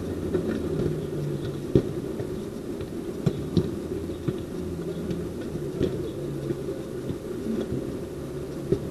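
A steady low hum with a few short, sharp knocks of a football being kicked on artificial turf, the loudest a little under two seconds in.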